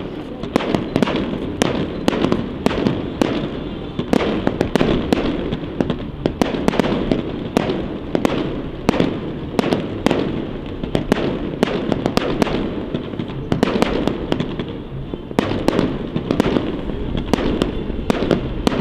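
Fireworks display: a dense, irregular run of sharp bangs and crackles from bursting shells, several a second, over a continuous rumble.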